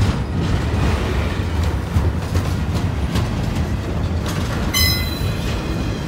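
Double-stack container well cars of a freight train rolling past: a steady low rumble of steel wheels on rail with scattered clicks, and a brief high metallic squeal about five seconds in.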